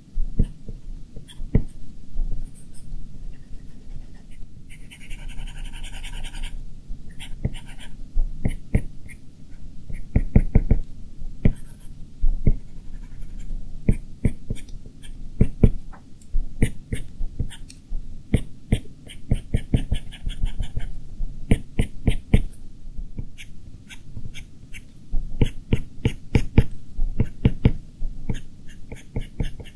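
Stylus tapping and scratching on an iPad Pro's glass screen during drawing: many short, sharp, irregular ticks, with a longer scratchy stroke about five seconds in.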